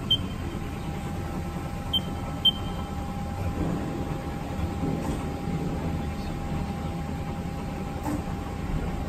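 Three short high beeps from the Haas CNC lathe's control keypad as keys are pressed, the last two about half a second apart, over a steady low machinery hum with a faint constant tone.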